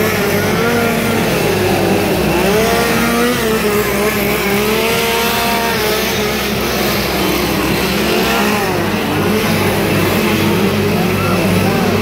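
Chainsaw engines running and revving, their pitch rising and falling over a steady low drone.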